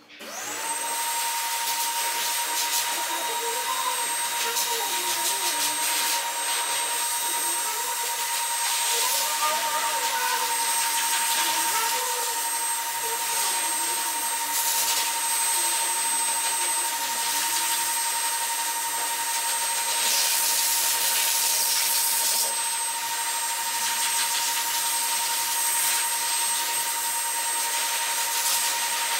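Pet grooming dryer switching on and spinning up to speed within the first second, then blowing steadily through its hose with a high, steady whine over the rush of air.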